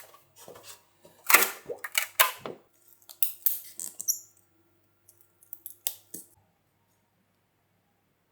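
Handling noises: a string of short clicks, knocks and scrapes, thickest between about one and two and a half seconds in, thinning out and stopping after about six seconds. A faint steady hum runs under them and stops at about the same time.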